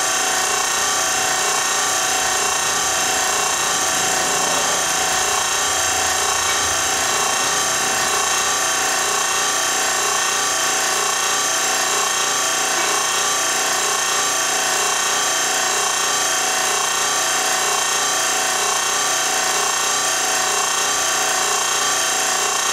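A motor running steadily in the background, an even mechanical whir and hiss that does not change.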